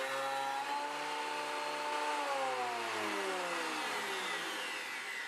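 Triton benchtop thickness planer running steadily. About two seconds in, its motor and cutterhead begin winding down in a falling whine as the machine coasts to a stop.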